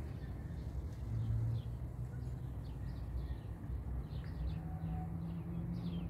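Small birds chirping in many short high notes, coming more often after about two seconds in, over a steady low hum.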